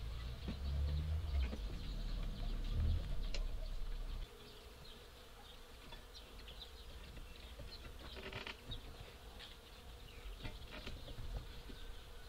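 Outdoor ambience with insects buzzing, and light clicks and scrapes of wire being wrapped around a wooden handle. A low rumble in the first four seconds stops abruptly.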